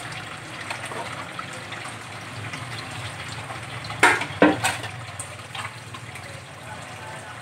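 Water running and splashing in a stainless steel sink as a whole carp is rinsed by hand. About four seconds in come two loud knocks against the metal sink as the fish is set down.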